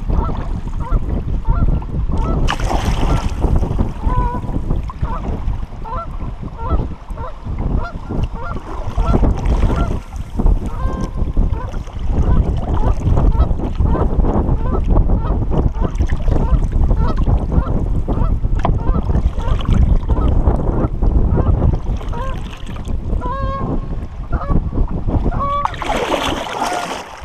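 Geese honking, short calls repeated on and off and bunched together near the end, over heavy wind buffeting the microphone and water slapping against the kayak hull.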